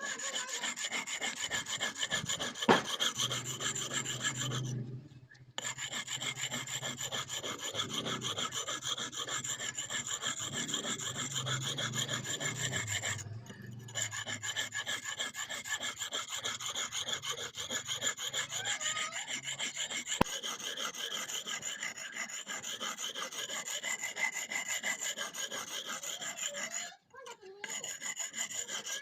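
Steel blade of a hand-forged vegetable cutter being filed or ground to sharpen it: a steady metal rasping made of rapid strokes, stopping briefly three times.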